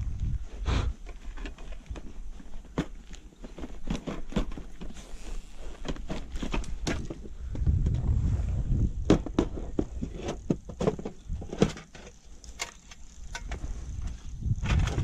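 Scattered clicks and light knocks as fishing gear and a metal cookie tin are handled on a plastic kayak, over an uneven low rumble.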